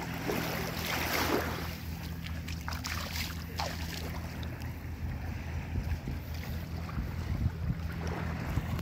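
Small sea waves washing up the sand at the water's edge, with a louder rushing swish about a second in, over a steady low rumble of wind on the microphone.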